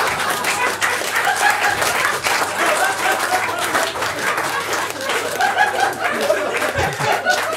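Audience and panel laughing and applauding, with dense clapping and laughter throughout.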